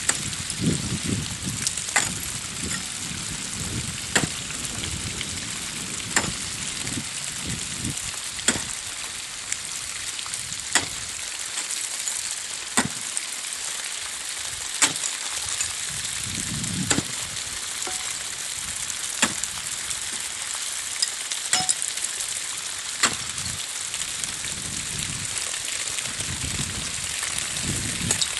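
Regular hammer blows on brick, about one every two seconds, each a sharp distant knock, over a steady hiss.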